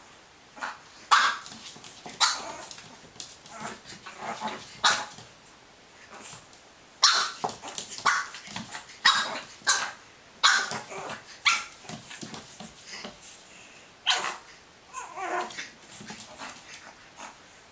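A dog barking in short barks, repeated over and over at uneven intervals.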